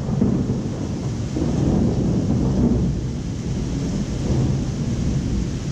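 Thunder rumbling low and rolling, swelling and easing several times, over the steady hiss of heavy rain.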